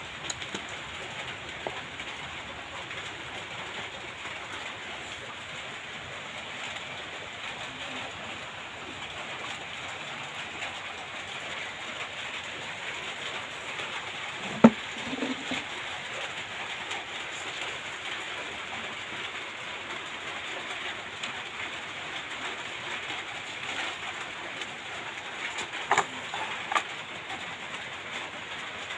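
Steady hiss of background noise with one sharp knock about halfway through and two clicks near the end, from handling the back panel and wiring of a 5.1 home theatre speaker unit.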